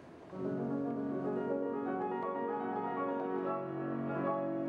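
Grand piano starting to play about a third of a second in, with slow, sustained chords whose notes ring on and overlap.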